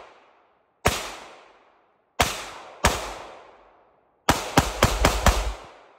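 CZ P10 C semi-automatic pistol being fired, eight shots in all. There is a single shot about a second in, two more about two and three seconds in, then a quick string of five near the end, each shot trailing off over about a second.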